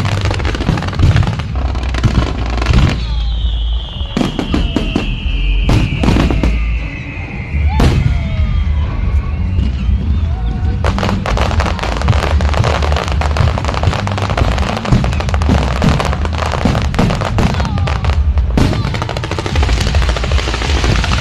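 Fireworks going off in a dense barrage: rapid crackling cracks over heavy low booms. A long whistle falls steadily in pitch from about three to nine seconds in. From about eleven seconds in the crackling becomes dense and continuous again.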